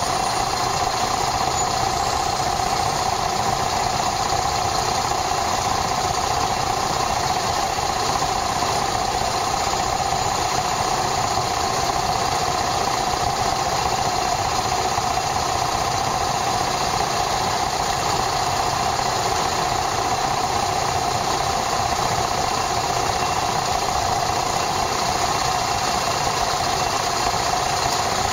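Yamaha SRX400's air-cooled single-cylinder four-stroke engine running at a steady, unchanging speed, picked up by a camera mounted on the motorcycle.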